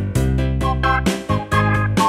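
Background music: a quick melody of short notes over steady bass notes.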